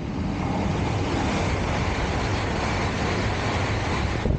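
E5-series Shinkansen Hayabusa running through the station at about 310–320 km/h: a dense rushing roar that builds as it arrives and then holds steady. Near the end it cuts off abruptly as the tail passes, leaving wind from the train's wake buffeting the microphone.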